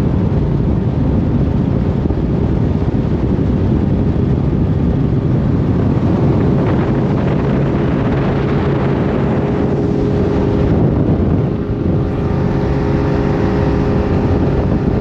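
Outboard motor of a Ranger Z185 bass boat running at speed, a steady drone, with wind buffeting the microphone. The level dips briefly about eleven and a half seconds in.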